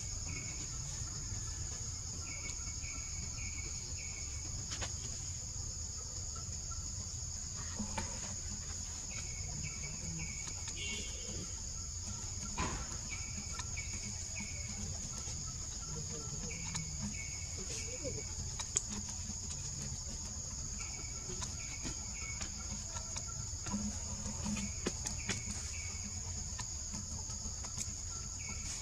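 Tropical forest ambience: a steady high insect drone, with a short chirping call repeated in quick runs of three or four every few seconds. Soft clicks and rustles come now and then.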